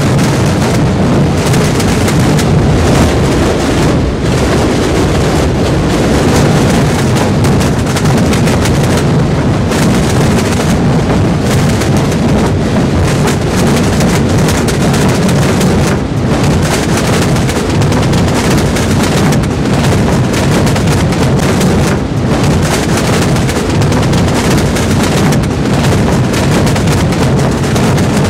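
Massed Holy Week drumming (tamborrada): hundreds of drums beaten together at close range. A dense, continuous din of drumbeats with no single beat standing out.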